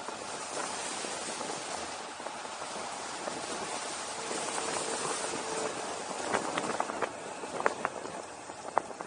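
Wind rushing over the camera's microphone on a fast downhill descent. A steady tone about four seconds in lasts about a second and a half, and a string of sharp clicks and rattles follows in the later seconds.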